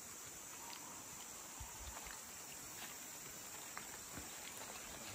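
Steady high-pitched chorus of forest insects, faint, with a few soft ticks.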